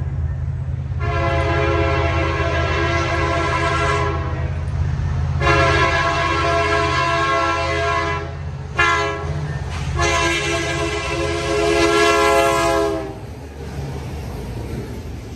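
Freight train's lead diesel locomotive sounding its multi-tone air horn in the grade-crossing pattern of long, long, short, long, over the steady low rumble of the approaching diesels. The horn stops about 13 seconds in, and the locomotives and cars rumble past.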